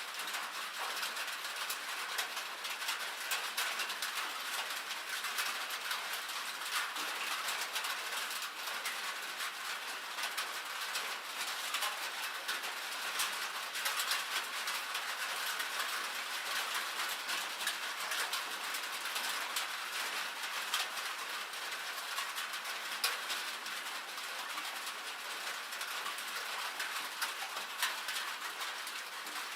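Rain and hail falling on a metal roof: a dense, steady patter of many small hits on the sheet metal.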